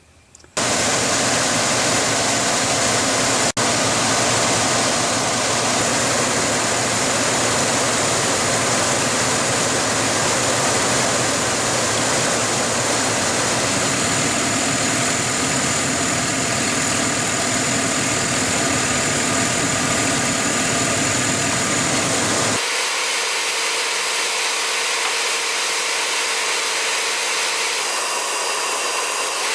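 A 2013 Chevrolet Silverado's engine idling with the air conditioning on maximum, heard loud and close as a steady mechanical noise. There is a single sharp click a few seconds in. About 22 seconds in the sound changes abruptly and loses most of its low rumble.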